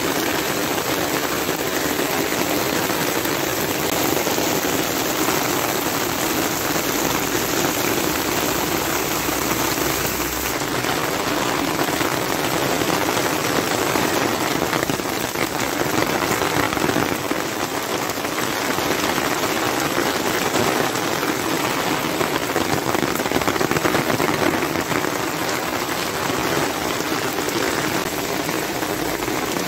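Rain falling steadily on wet street paving, a dense, even hiss.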